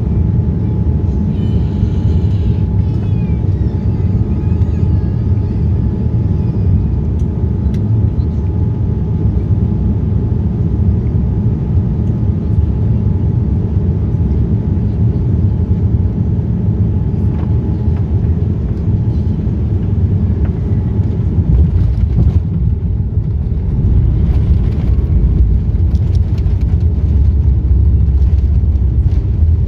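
Boeing 787-9 cabin noise: a steady low rumble of the engines and airflow, heard from inside the cabin near a window seat. It grows louder about three quarters of the way in.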